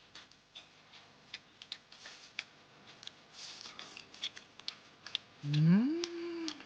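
Scattered light clicks and smacks of people eating at a table, then near the end a loud, rising, held "mmm" of enjoyment at the taste of the braised beef.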